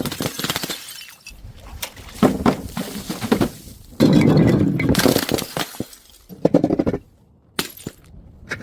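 Glass shattering in several separate smashes, each followed by shards clinking and tinkling. The loudest break comes about four seconds in.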